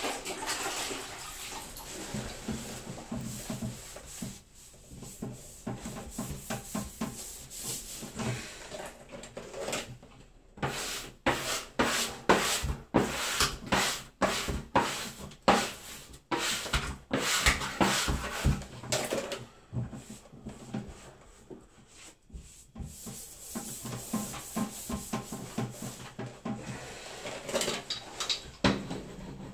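Quick, irregular rubbing and scrubbing strokes from a wet sponge being worked over wallpaper, coming thickest and loudest in the middle stretch.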